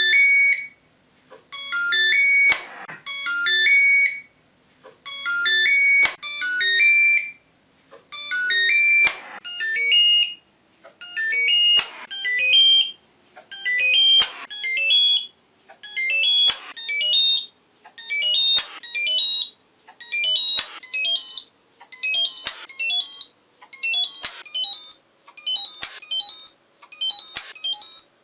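Thermomix's electronic chime, a short beeped melody played over and over as a countdown effect. Each repeat comes sooner and higher in pitch than the last.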